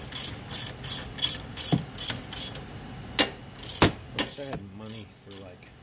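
Socket ratchet wrench clicking as it is swung back and forth on the strut pinch bolt of the steering knuckle, about three clicks a second at first, then a few louder single clicks further apart.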